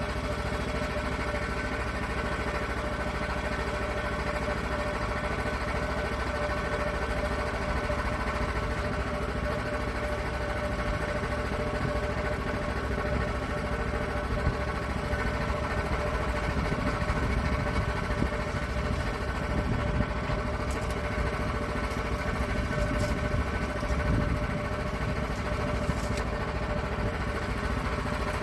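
Portable sawmill's gas engine running steadily at a constant speed.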